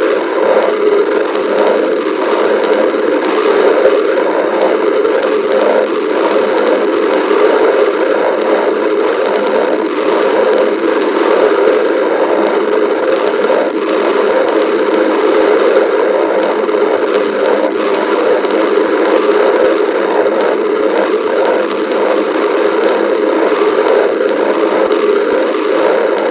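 A person's stomach growling and gurgling, loud and continuous with no pauses.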